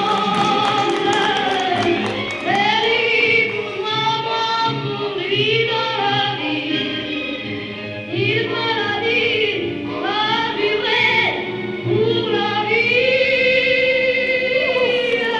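Choral music: voices singing long held phrases, one after another.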